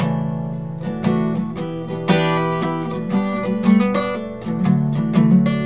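Acoustic guitar strummed, with a chord struck roughly once a second and left ringing.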